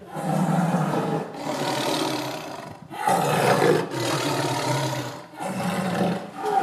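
Tiger growling and roaring in a run of about four long, deep calls, each a second or more, one straight after another.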